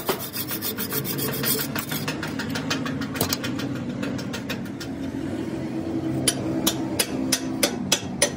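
Hand-tool strokes rasping on steel, in bursts of quick back-and-forth strokes, with a steady low hum underneath.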